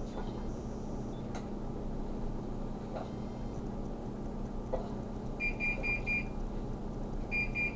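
Electronic oven timer beeping: a quick run of about four high beeps about five seconds in, and a second run starting near the end, over a faint steady hum. It is the timer signal that the cookies' baking time is up.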